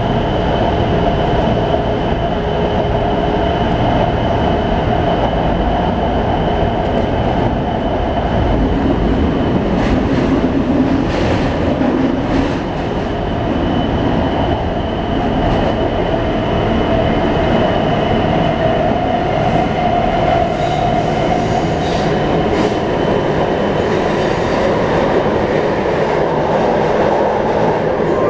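Taipei Metro C321 refurbished train running between stations, heard from inside the car: a steady rumble of wheels and running gear with two steady whining tones from its traction inverter and motors, the odd inverter noise of this refurbished train.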